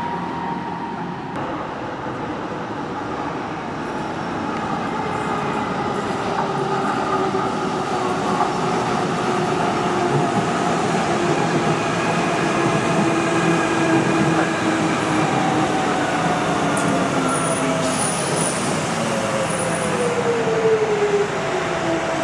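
Docklands Light Railway train running, its electric traction motors whining with the rumble of wheels on rails, growing louder over the first several seconds. The whine falls in pitch over the last few seconds, with a brief high-pitched squeal shortly before.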